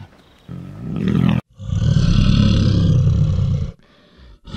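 Bear roar sound effect: a short growl about half a second in that stops abruptly, then one long, loud roar lasting about two seconds, and the start of another roar near the end.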